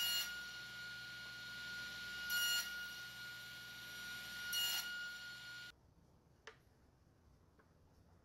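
A steady, high-pitched ringing tone with a swell about every two and a half seconds. It cuts off suddenly about two-thirds of the way through, leaving near silence with a single faint click.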